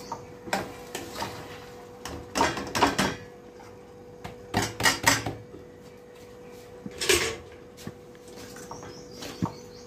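A plastic colander and a spoon knocking and clattering against a steel kadhai as rice is tipped into sugar syrup and stirred, in irregular clusters of knocks.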